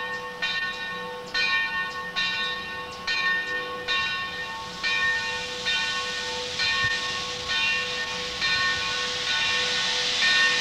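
Steam locomotive's bell ringing steadily, about one stroke a second. Steam hiss builds from about halfway through as steam blows from the cylinder cocks at the front of the engine.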